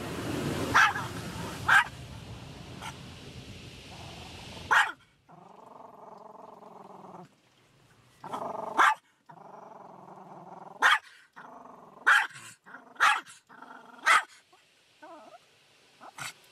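Shih Tzu in a car's cabin barking about nine times in sharp single barks and growling low between them, upset by the car wash. A loud rushing noise from the car wash runs under the first few barks and stops suddenly about five seconds in.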